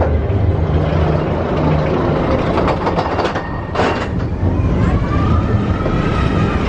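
Expedition Everest steel roller coaster train running fast along its track: a steady heavy rumble of the wheels on the rails, a burst of clatter about three to four seconds in, and a rising squeal that starts about two-thirds of the way through.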